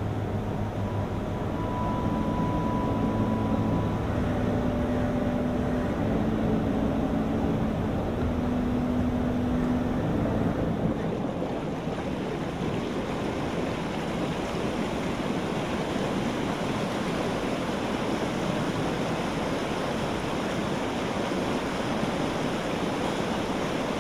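Water rushing and swirling in the Rain Oculus, a large inverted acrylic bowl, as it spins into a whirlpool. It is a steady even rush from about halfway in. Before that there is a steady background hum with a few low droning tones.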